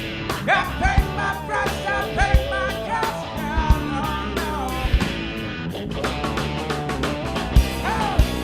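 A band playing an R&B-rock song: steady drums and bass under a lead line that slides and bends between notes, without lyrics.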